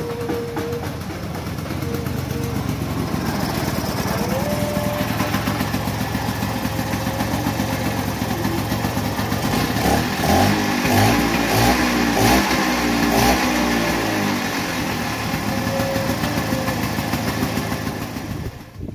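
Vespa Sprint's two-stroke single-cylinder engine running steadily, then revved up and down several times about halfway through before it settles back.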